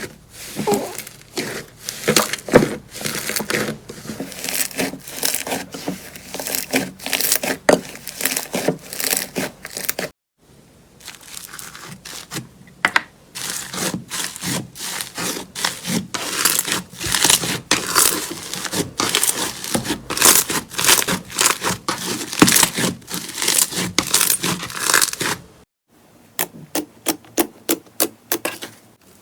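Slime being squeezed and pressed by hand, giving dense crackling pops and sticky snaps. The sound cuts out briefly twice; in the last few seconds it becomes a run of evenly spaced sharp pops, about three a second.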